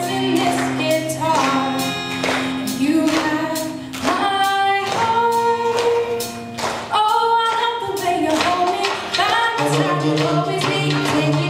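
Live pop song: a woman singing into a microphone over accompaniment with a steady beat.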